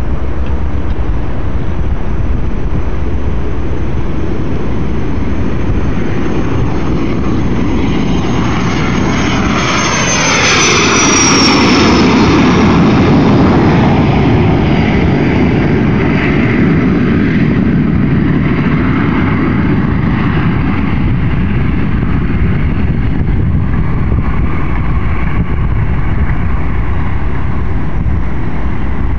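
Cessna Citation I business jet taking off, its two Pratt & Whitney Canada JT15D turbofans at full power. A high turbine whine drops sharply in pitch as the jet passes, about ten seconds in. The loudest rush of engine noise follows, then the sound carries on more quietly as the jet climbs away.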